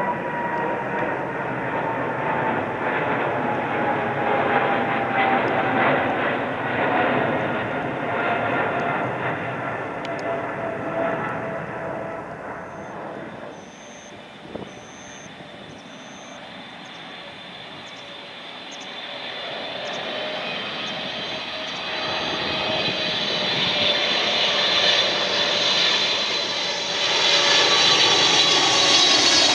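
Boeing 777 jet engines in two passes. First comes a loud jet roar with a fan whine that falls slowly in pitch and fades about halfway through. Then the GE90-115B turbofans of a 777-300ER on landing approach, throttled back, grow louder toward the end with a high, whistling fan whine.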